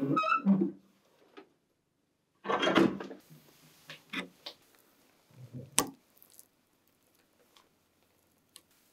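Workshop tool handling: a few knocks and clattering clicks of tools on metal and wood, the loudest at the start and around three seconds in, then faint small ticks of a metal pick working at a brass pin in a wooden knife handle.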